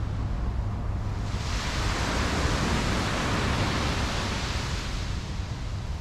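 Low wind rumble on the microphone, with a rushing hiss that swells up about a second in and fades away near the end.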